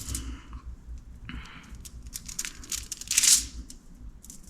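Small clicks, scraping and crinkling handling noises as 5-minute epoxy is hurriedly spread onto knife handle scales, with a louder rustle about three seconds in.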